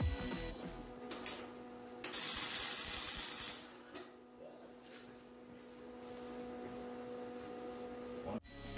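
MIG welding arc crackling and hissing for about a second and a half, then stopping as the welder runs out of wire; a faint steady hum carries on afterwards.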